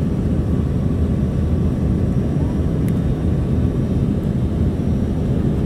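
Steady cabin noise of an Embraer 145 regional jet in flight: a deep, even rumble of its twin turbofan engines and airflow, with a faint thin whine above it.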